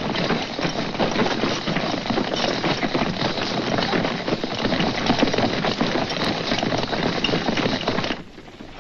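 Steady dense pattering noise like heavy rain, full of fine crackles, that cuts off suddenly about eight seconds in.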